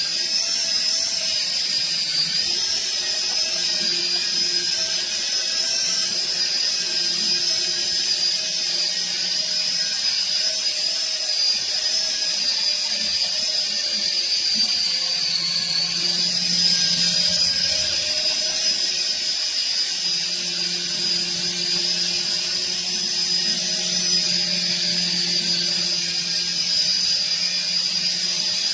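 Toy remote-control helicopter's small electric motors and rotors running steadily: a high whine that wavers slightly in pitch over a lower hum.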